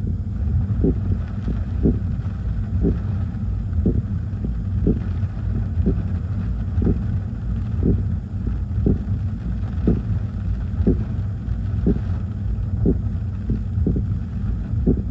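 Car windshield wiper sweeping back and forth, each stroke giving a short squeak about once a second, over a steady low rumble of wind buffeting the car.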